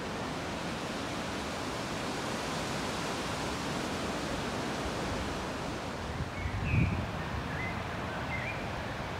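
Steady hiss of drizzle falling on trees and grass, with a brief low thump about seven seconds in.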